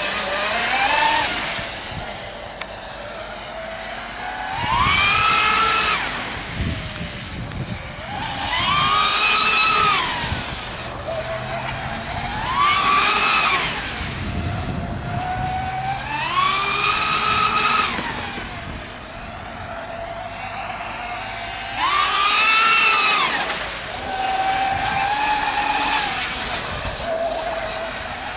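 Electric motors of a twin radio-controlled catamaran racing boat, running on a 4S battery at speeds up to about 61 mph, whining at high speed. The pitch swells up and falls back about five times as it throttles up along each pass, settling to a lower steady hum in between, with a rushing hiss during each burst.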